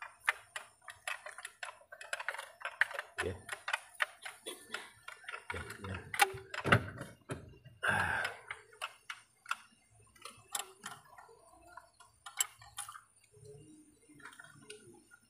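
Irregular light clicks and metallic clinks of a wrench and plastic wiring connectors being handled on top of an engine. There are many quick ticks, a few louder ones, and no engine running.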